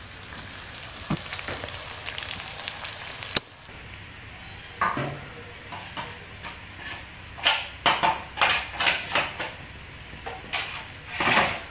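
Food frying in oil in a wok, a steady sizzle, with a run of short metallic clinks and scrapes of pots and utensils over the second half.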